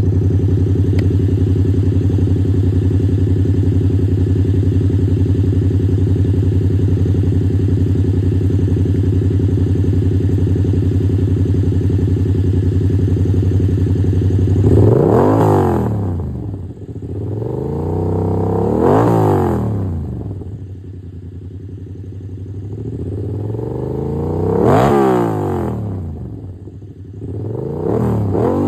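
Yamaha R7 parallel-twin motorcycle engine with a new aftermarket exhaust, idling steadily for about half the time, then revved four times, each rev rising sharply and falling back toward idle.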